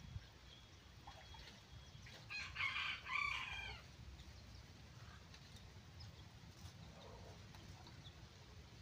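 A rooster crowing once, about two seconds in: a single call of about a second and a half that drops in pitch at the end.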